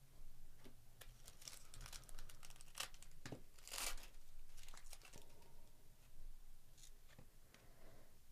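A Topps Series 1 baseball card pack being torn open, its wrapper crinkling, with the cards rustling as they are handled: several short rustles, the loudest about four seconds in.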